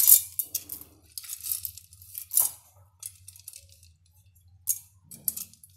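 Handfuls of water-soaked safflower seeds scooped and dropped into a steel mixer-grinder jar: irregular wet rattles and clinks of seeds and the steel bowl against the steel jar, in uneven bursts with short gaps.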